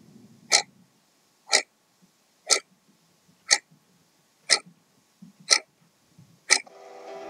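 Opening of a pop-rock song: a sharp percussive hit exactly once a second, seven times. Sustained chords come in under the hits near the end.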